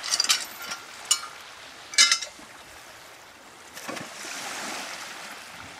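Bare feet splashing through shallow water: a few sharp splashes in the first two seconds, then a softer wash of water from about four seconds in.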